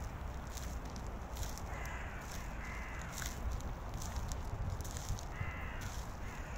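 A crow cawing three times: two harsh caws about two and three seconds in and a third past five seconds, over the walker's footsteps.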